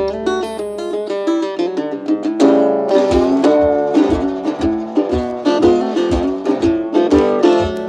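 Background music of plucked strings playing a melody, with a steady beat joining about three seconds in.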